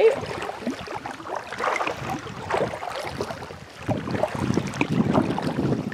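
Small waves lapping and splashing against a plastic kayak's hull, with wind buffeting the microphone, louder from about four seconds in.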